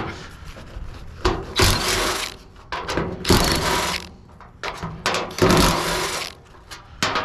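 Impact gun run in about six short bursts, each up to about a second long, on stuck fasteners that are refusing to come loose.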